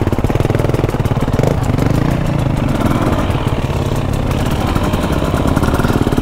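Dirt bike engine held at low revs with a steady, even pulsing beat, as on a slow descent.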